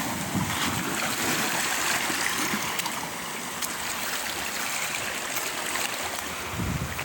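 Small waves washing and lapping against a rocky, pebbly shoreline in a steady rushing wash.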